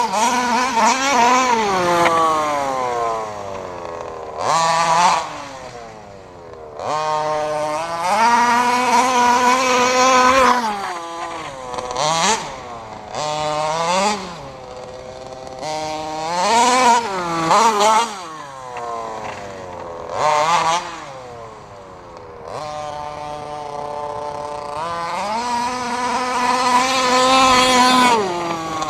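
RCMAX 46cc two-stroke gas engine of a 1/5-scale RC truck, revved in repeated bursts of throttle, its pitch climbing high and then dropping back to a lower note between bursts.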